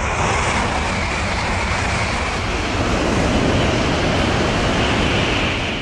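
Japanese Shinkansen bullet train passing at high speed: a steady, loud rushing noise.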